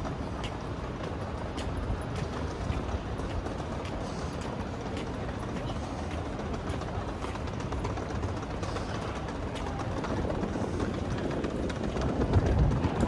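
City street ambience: a steady rumble of traffic with faint footsteps ticking through it, growing louder near the end as a vehicle passes close.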